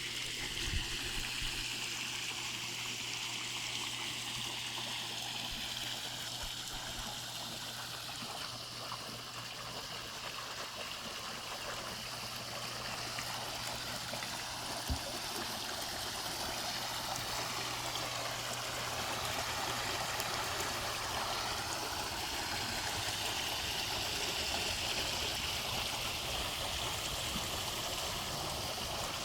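Water spilling steadily from a swimming pool's waterfall feature, an even splashing and trickling.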